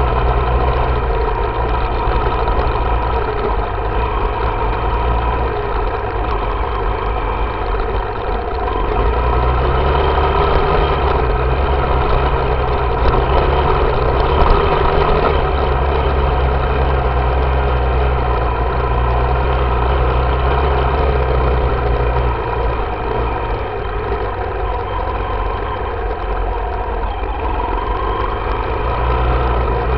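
Yamaha YZ dirt bike engine running at low, fairly steady revs while riding slowly on a grass trail. The revs pick up about nine seconds in, ease off again past the twenty-second mark and rise once more near the end.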